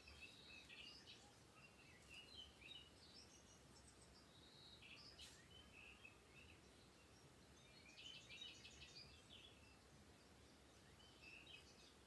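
Near silence with faint bird chirps and twittering scattered throughout, including a quick trill about eight seconds in.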